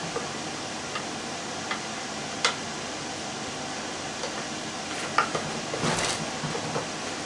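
A few sharp metal clicks and clinks of hand tools and sockets being picked up and set down, with a short run of rattling clinks about six seconds in, over a steady background hiss.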